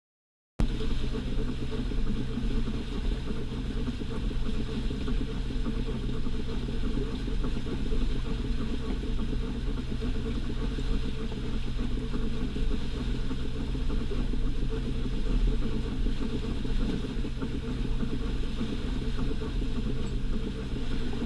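Fishing boat's inboard engine running steadily under way: a constant low drone with a steady hum. It starts abruptly about half a second in.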